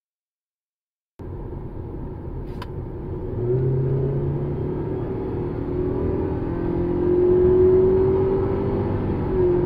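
Toyota Alphard 2.5-litre four-cylinder engine accelerating after about a second of silence: the engine note climbs slowly and steadily, dips a little near the end, then holds. A single click about two and a half seconds in.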